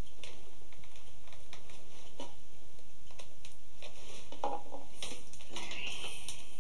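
Thin split pine strips rustling and scraping as a strip is pulled and worked through the woven rim of a basket, with scattered small clicks and crackles and a brief busier patch of scraping near the end.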